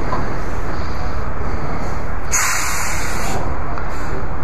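A steady, low engine rumble at idle, with a short burst of hiss a little over two seconds in that lasts about a second.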